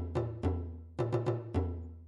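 Music made of deep, ringing drum hits in an uneven rhythm, several to a second. The last hit fades out near the end.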